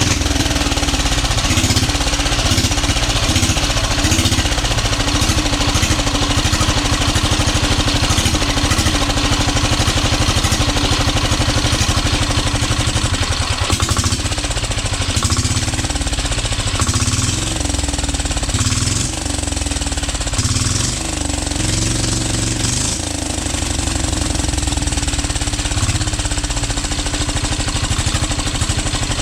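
A freshly overhauled 12 HP air-cooled single-cylinder diesel engine running steadily with a rapid, even diesel chug. It has started and is turning freely.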